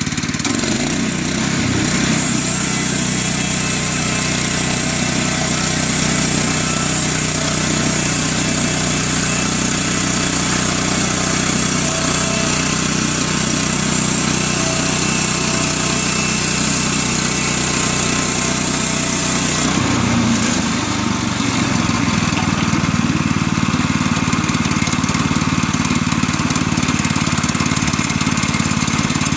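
Woodland Mills HM122 portable bandsaw mill running, its small gasoline engine going steadily while the band blade cuts through a log, with a steady high hiss. About two-thirds of the way through, the hiss stops and the engine runs on alone as the blade leaves the cut.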